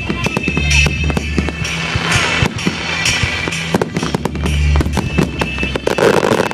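Fireworks going off in rapid, irregular bangs and crackles, heard over loud pop music with a steady bass line.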